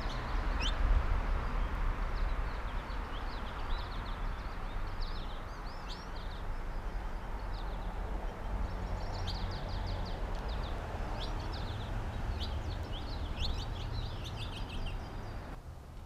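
Small songbirds chirping and twittering in quick, repeated runs of short notes, over a steady low rumble and hiss; the hiss drops away suddenly just before the end.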